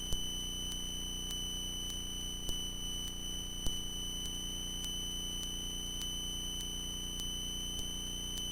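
Steady high-pitched electrical whine over a low hum on a light aircraft's intercom and radio audio line, with a few faint ticks.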